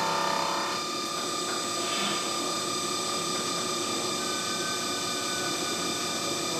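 Optimum F100 TC CNC vertical mill's spindle running with a face-mill cutter taking a cut across a metal block held in a vise: a steady machining whine of several held tones over a gritty cutting noise. A strong tone in the whine drops away about a second in.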